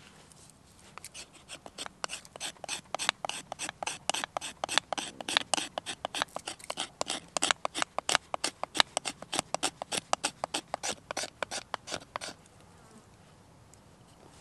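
A knife blade scraping a stick of resinous pine fatwood in quick, rapid strokes, several a second, shaving off fine tinder dust. The scraping starts about a second in and stops about twelve seconds in.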